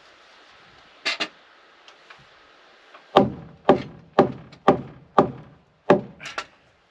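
Hammer blows on wooden timber: two quick taps about a second in, then six heavy strikes at about two a second, ending with two lighter taps.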